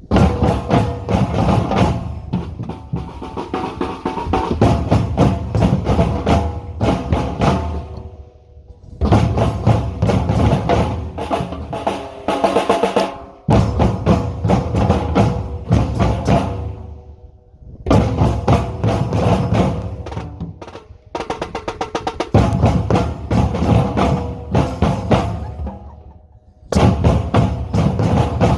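A drumming group plays short rhythmic phrases on drums with a higher wood-block-like click, stopping briefly and starting again about six times.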